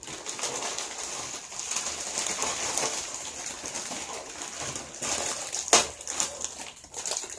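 Crinkling and rustling of plastic instant-noodle packets being torn open and handled, as the dry noodle blocks are pulled out onto a plate. There is a single sharp snap a little under six seconds in, the loudest sound.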